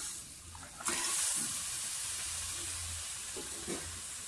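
Marinated raw chicken pieces tipped into hot oil and fried masala in a pressure cooker, bursting into a loud, steady sizzle about a second in.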